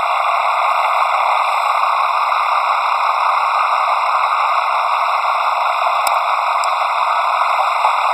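A loud, steady hiss with no rise or fall in pitch or level, and one faint click about six seconds in.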